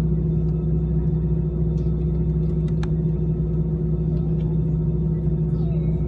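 Steady drone of an Airbus A320's engines heard inside the cabin, with even low tones that neither rise nor fall. A faint click sounds about three seconds in.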